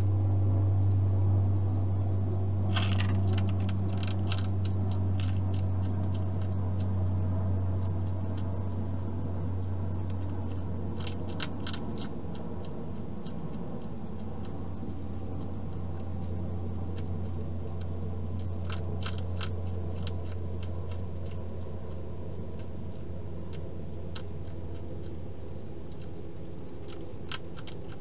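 A hedgehog crunching dry food in a plastic feeding station: clusters of sharp clicks every several seconds, over a steady low hum that slowly fades.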